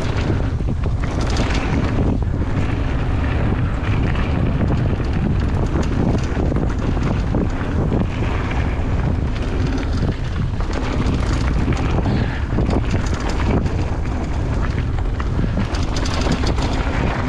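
Wind buffeting the microphone and tyres rolling over dirt and gravel as a Ragley Big Al hardtail mountain bike descends a trail, with frequent small knocks and rattles from the bike over the rough ground.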